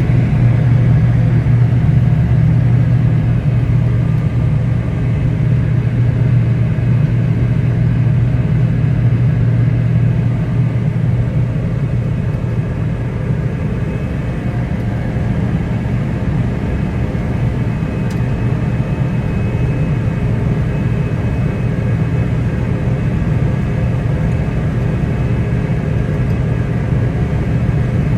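Cotton-harvesting machinery's engine running steadily, a loud, even drone with a deep hum.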